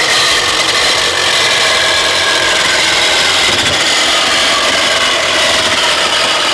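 Handheld power tool running steadily as it cuts into the metal canister of an old fuel filter held in a vise: a continuous, loud cutting noise with a steady high whine.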